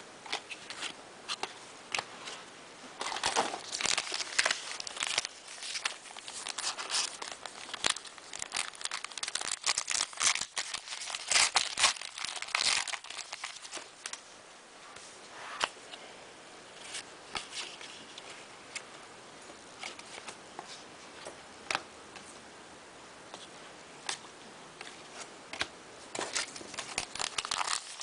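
Crinkling of a foil trading-card pack wrapper and cardboard cards rustling as they are handled and flipped, busy in the first half, then scattered ticks and rustles.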